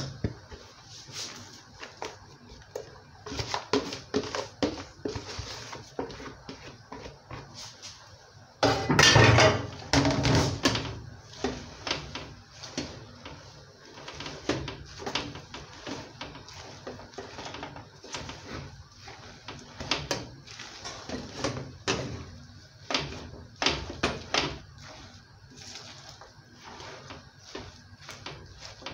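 A wooden spoon stirring chopped leafy greens in a large metal cooking pot: the leaves rustle and the spoon scrapes and knocks irregularly against the pot's sides. A louder, rougher stretch of stirring comes about nine seconds in and lasts about two seconds.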